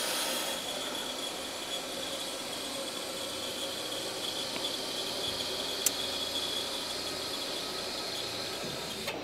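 Two-post car lift lowering: the hydraulic release valve is held open and fluid bleeds off the rams with a steady hiss as the pickup comes down. A single faint click about six seconds in.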